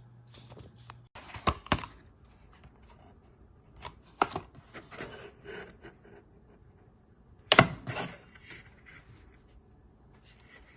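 Handling noise from hard objects: a few sharp clacks, the loudest about seven and a half seconds in, with rustling between them. A low hum stops about a second in.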